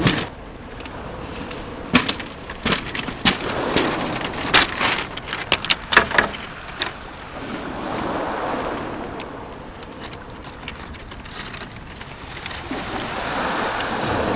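Waves washing on a shingle beach, swelling twice in the second half. In the first half come sharp clicks and rattles of handling on the pebbles as a caught fish is unhooked.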